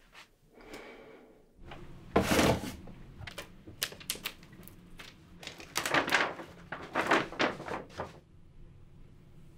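Packing and handling noises: a burst of rustling about two seconds in, then a run of small clicks and knocks. Near the end come more bursts of paper rustling as a poster is pulled off the wall.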